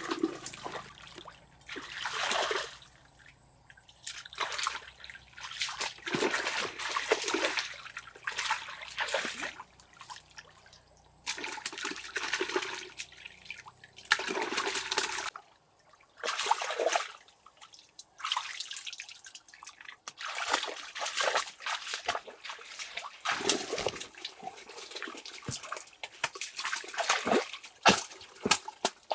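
Water splashing and sloshing in irregular bursts, with trickling and dripping in the gaps between them, as water is stirred up and runs off.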